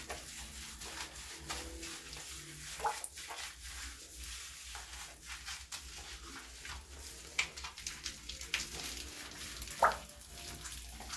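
Small scattered clicks and rustling of hands handling and rubbing a wet dog during its bath, with a few brief sharp sounds, one near the end rising in pitch.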